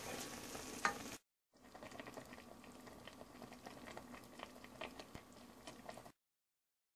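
Chicken adobo simmering uncovered in a large pot: faint bubbling with many small pops. The sound drops out briefly about a second in and cuts off abruptly about six seconds in.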